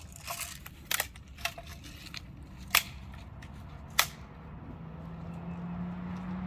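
A few sharp, separate clicks and snaps from a BB gun being worked and fired, the loudest two about a second apart near the middle. From about halfway, a passing vehicle's engine hum rises steadily underneath.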